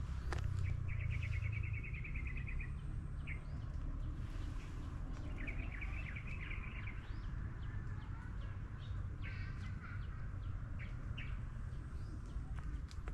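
Wild birds calling, with two rapid trills of about a second and a half each and scattered short chirps, over a steady low rumble.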